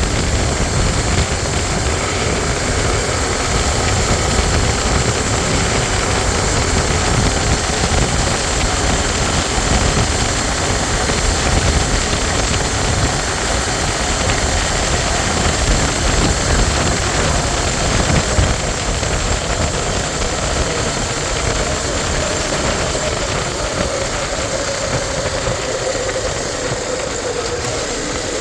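Honda XR 250 Tornado motorcycle's single-cylinder engine running steadily, a dense low rumble with a rushing noise over it.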